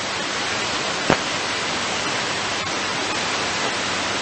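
Steady hiss of static from a VHF airband radio receiver on an ATC frequency, with no one transmitting, and a single faint click about a second in.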